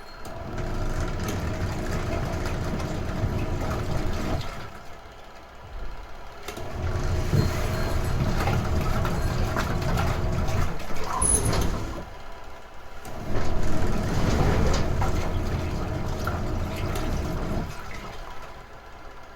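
Retro-style washing machine in its wash cycle: the motor and pulsator run with water churning in the tub, in runs of about five seconds with short pauses between them.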